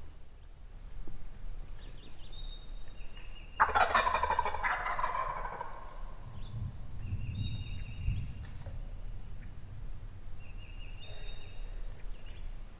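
A wild turkey gobbler gobbles once, loudly, about four seconds in. A songbird repeats a short song of high, stepped, falling notes three times.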